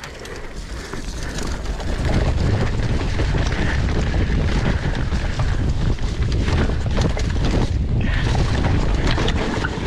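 Mountain bike descending fast on a wet dirt trail: wind buffeting the camera microphone, with tyres on dirt and the bike's chain and frame rattling over bumps. It gets louder about two seconds in as the bike picks up speed.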